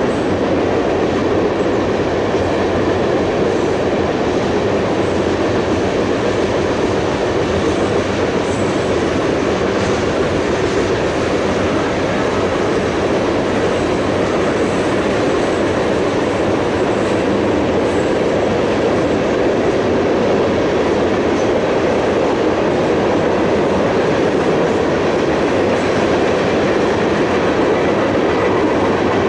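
Freight train of tank cars rolling past: a loud, steady noise of steel wheels running on the rails.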